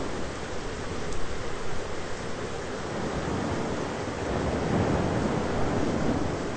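Thunderstorm ambience: a steady rushing of rain and wind, with a low rumble of distant thunder that swells about two-thirds of the way through and then fades.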